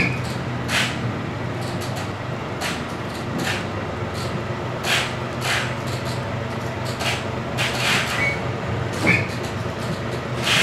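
Scania truck's diesel engine running steadily at low revs while the trailer is slowly reversed into a loading dock, with a dozen or so short, sharp high-pitched sounds at irregular intervals over the top.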